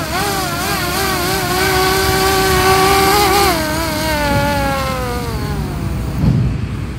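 Brushless motors and propellers of an X3 Pro/X3 Max quadcopter drone whining. The pitch wavers as the throttle is worked, holds steady, then falls away from about halfway through as the motors spin down. A thump comes near the end.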